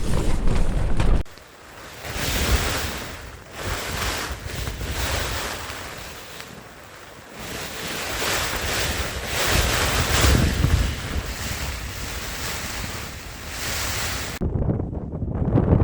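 Gale-force wind gusting, surging and easing in waves, with wind buffeting the microphone. It dips suddenly about a second in, then builds again in gusts.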